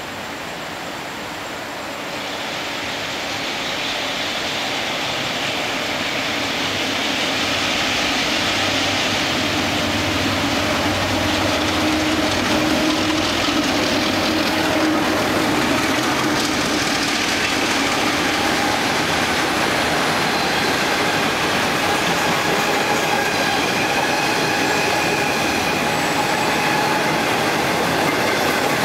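A DF11 diesel-electric locomotive and its 25Z passenger coaches run through the station without stopping, the sound growing louder over the first few seconds as the train arrives. The coaches' wheels run on the rails with thin, steady squealing tones.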